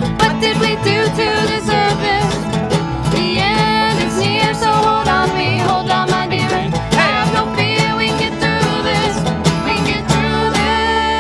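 Country band playing an instrumental break with quick plucked-string picking. About ten and a half seconds in, the playing settles into a held, ringing chord.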